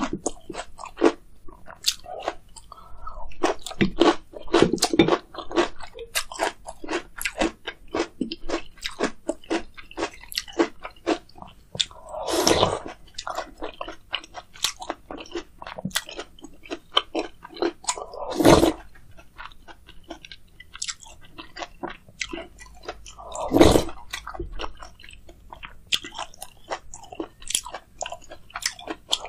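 Close-miked mouth sounds of a person eating spicy meat-and-rice soup with kimchi: steady chewing and crunching made of many small wet clicks. Three louder, longer sounds of about half a second stand out, in the middle and toward the end.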